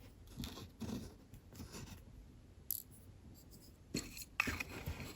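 Faint rustling and a few light clicks of tiny plastic miniature toy pieces being handled and set down.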